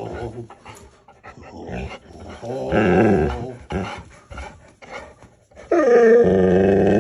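A dog vocalizing in two drawn-out stretches, the second longer and starting about two-thirds of the way in, its pitch wavering.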